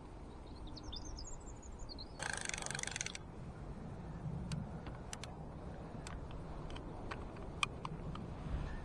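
A small bird chirps briefly, then a short dense rasp about two seconds in, followed by a run of scattered sharp clicks as a vintage Intrepid Extra fixed-spool fishing reel is handled.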